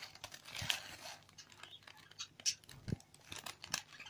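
A cardboard product box handled and shifted about by hand, giving an irregular string of short crinkles, taps and rustles.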